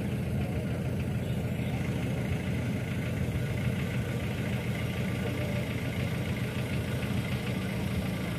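Jeep Willys engine idling steadily.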